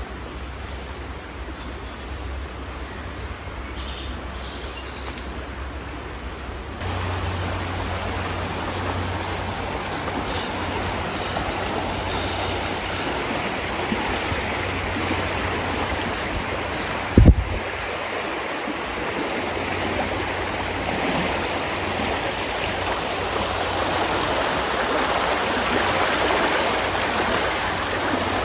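Heavy rain falling in a steady hiss, which gets louder about a quarter of the way in. A single low thump sounds just past halfway.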